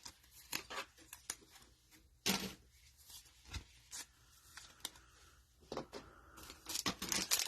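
Faint handling of football trading cards and their foil pack wrappers: scattered soft rustles and clicks with quiet gaps, growing busier near the end.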